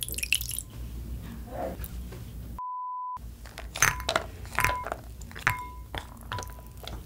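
Milk poured briefly into a glass bowl, then a half-second censor beep. After that, Maltesers and a spoon clink against the glass bowl several times, each clink ringing briefly.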